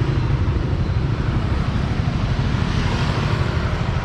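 Yamaha R15 V3 motorcycle's single-cylinder engine running steadily at low revs, with a fast, even low pulsing.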